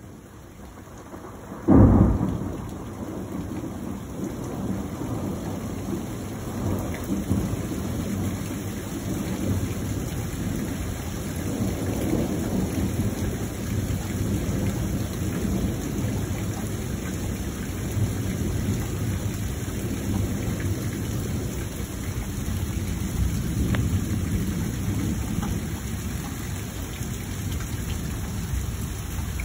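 Thunder: a sharp, loud crack about two seconds in, then a long rolling rumble that swells and eases several times, over the steady hiss of rain.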